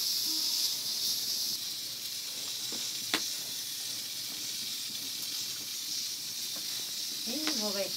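Steady high hiss, with a single sharp click about three seconds in.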